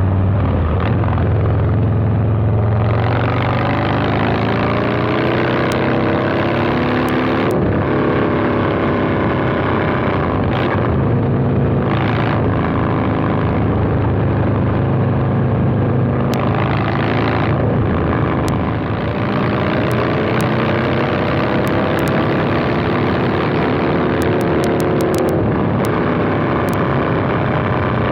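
Harley-Davidson Milwaukee-Eight 117 V-twin through a Two Brothers 2-into-1 exhaust, heard while riding: the engine note climbs in pitch as the bike accelerates and drops back at each gear change, several times over. The exhaust has a deep, low tone and is loud.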